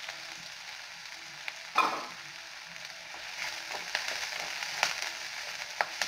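Diced onions, green chillies, ginger and garlic sizzling in hot oil, stirred with a wooden spatula: a steady frying hiss with scrapes and clicks, one sharper knock about two seconds in, and busier stirring in the second half.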